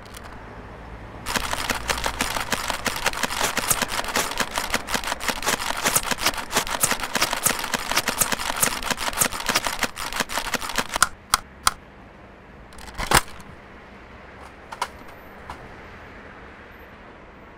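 Toy foam-dart blaster firing in a long rapid, clattering burst of clicks for about ten seconds, then a few single shots spaced out near the end.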